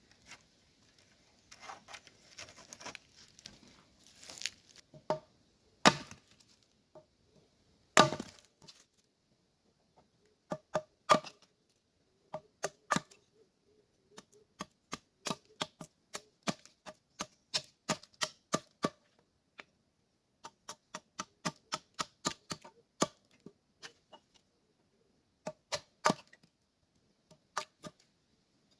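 Wood being struck over and over: a little rustling, two loud heavy blows, then a long run of sharp knocks at about two to three a second, typical of chopping or hammering wood while building a shelter.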